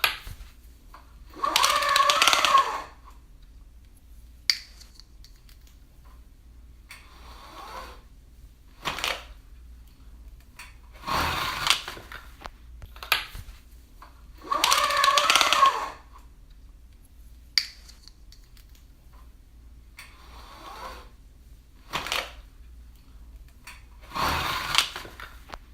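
Window blinds being opened and closed: a series of clattering pulls of about a second each, with single sharp clicks between them. The same sequence plays again about halfway through.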